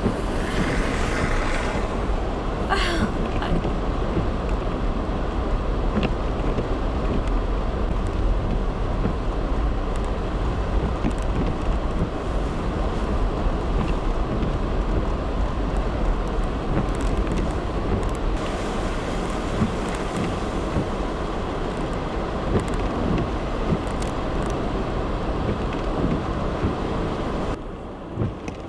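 Traffic on a slush-covered road: steady tyre and engine noise over a low rumble, with a vehicle swelling past in the first few seconds. The noise drops off sharply near the end.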